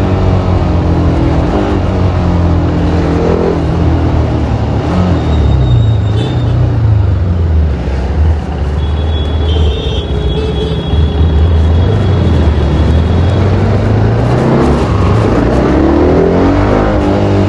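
TVS Apache RR310's single-cylinder engine through its stock exhaust, heard from the rider's seat while riding in traffic: the revs drop about three seconds in, run low and steady for a while, then rise again near the end.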